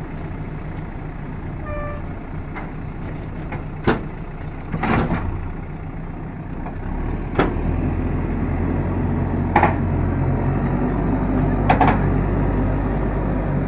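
JCB backhoe loader's diesel engine running, then working harder and louder about halfway through as it moves a truck on a tow bar, with a few sharp metallic clanks.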